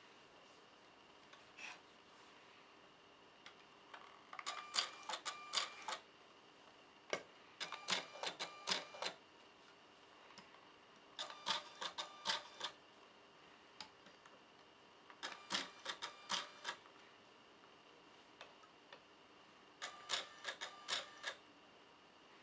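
JetStamp Pro handheld inkjet marking device being set on glass items and printing: five short bursts of quick clicks, about a second and a half each, spaced a few seconds apart.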